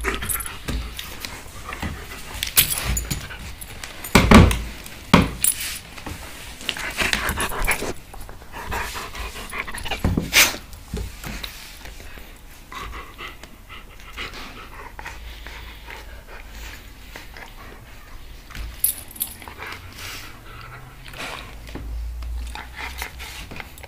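German Shepherd panting while it play-wrestles with a cat on a wooden floor. A few sharp knocks stand out in the first half.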